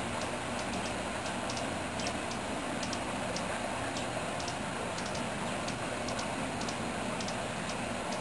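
Hummingbird nestlings giving short, high begging chips, about two a second and irregular, over a steady background rumble.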